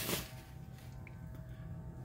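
A cloth rag rubbing over the engine's oil filter mounting for a moment at the start, then only a low steady hum.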